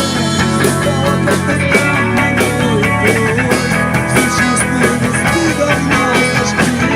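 Rock band playing an instrumental passage: guitars over a drum kit, with a melody line that bends up and down in pitch.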